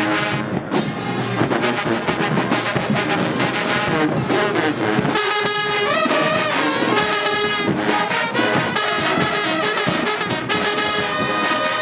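High school marching band playing, its brass section carrying held chords over the percussion beat.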